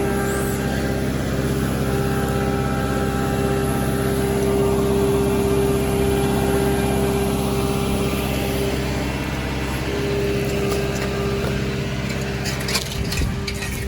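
Engine of the excavator working the dig site, running steadily at constant speed, with a few sharp metallic clanks and knocks near the end.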